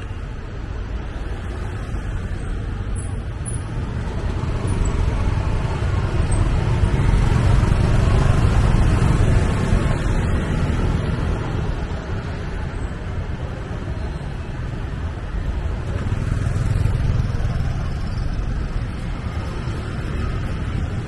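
Steady rumble of road traffic heard from a moving vehicle riding among motorbikes, tuk-tuks and cars, engines and tyres together. It grows louder about six seconds in, eases, and swells again near seventeen seconds.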